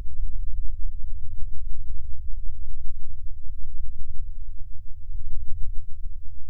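A cartoon character's spoken voice clip slowed to a tiny fraction of its speed, stretched into a deep, rough, steady low drone, with a few faint ticks.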